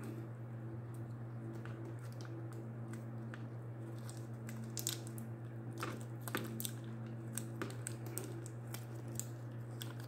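Small irregular clicks and light rustles of fingers handling a plastic S.H. Figuarts Spider-Man action figure, busier from about halfway in, over a steady low hum.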